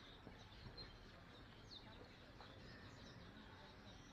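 Faint high chirping calls with a few short falling whistles, over a faint low rumble.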